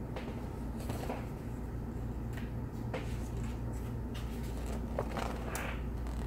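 Paperback picture book being handled and its page turned: a few soft paper rustles and light taps over a steady low room hum.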